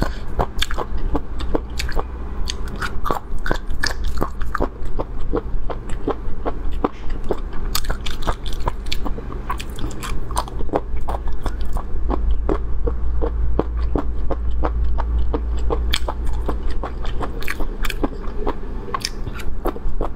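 Close-miked mukbang eating: biting and chewing a spicy chili-oil dish, with many sharp, crisp crunching clicks, several a second, over a steady low hum.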